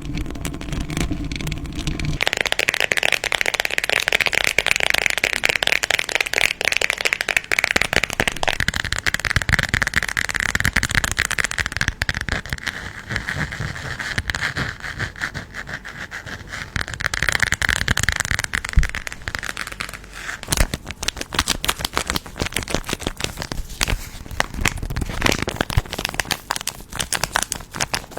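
Wrapped candies and piñata paper being handled close to the microphone: dense crinkling and rattling made of many small clicks. From about two seconds in to about eighteen it is a bright, hissing crinkle, then it turns to sparser, sharper clicks and rattles.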